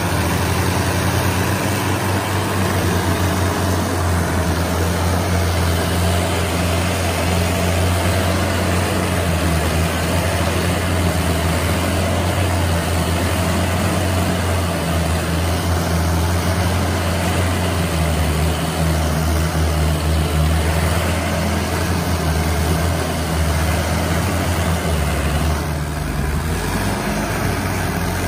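Diesel tractor engine running steadily at an even pitch; its tone shifts a little about two seconds before the end.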